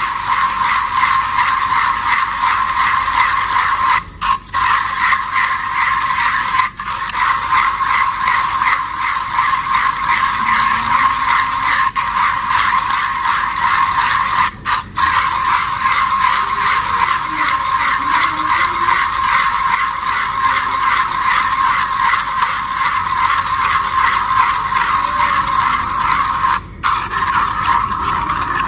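Hand-cranked manual coffee grinder grinding roasted coffee beans: a steady, really smooth grinding whir, broken by a few brief pauses in the cranking.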